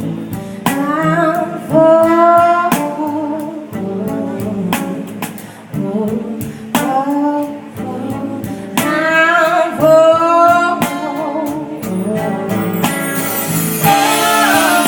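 A band playing a mellow song: a voice singing over guitar, with a steady percussive beat.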